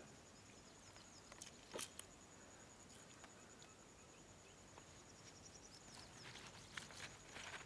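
Near silence with a faint, steady high trill and a few soft clicks. Near the end, soft wet rustling starts as a hand rubs spice paste into a whole fish on a banana leaf.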